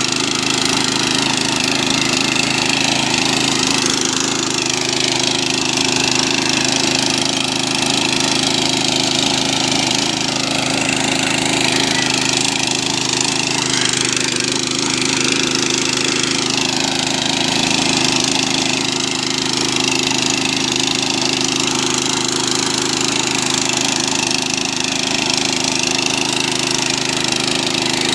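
The 208 cc single-cylinder four-stroke OHV engine of a Tiger GT800 mini power tiller running steadily while its rotary tines till soil, its pitch wavering a little.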